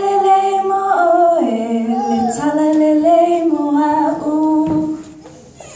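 A youth choir singing in long held notes, women's voices on top, the pitch stepping between sustained chords. The singing dies away near the end.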